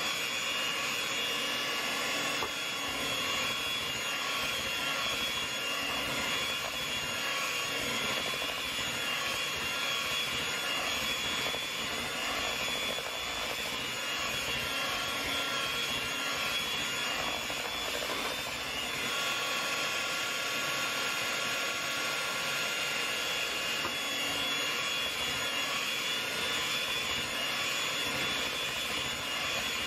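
Electric hand mixer running steadily, its beaters whipping thick sweet potato pie filling in a bowl: a continuous motor whine that changes slightly in pitch about two-thirds of the way through.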